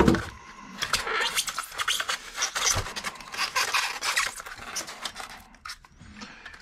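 Styrofoam packaging insert rubbing and scraping as a die-cast toy truck is handled and pushed into its moulded slot, with a knock right at the start and scattered clicks of metal and plastic on foam.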